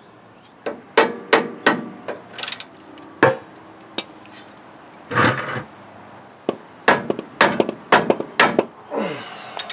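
Sharp metal-on-metal hammer blows in quick, irregular runs on the wrench on a stuck caliper bracket bolt of a 1999 Ford F-350's front brake, to break the seized bolt loose. A longer burst of noise comes about five seconds in.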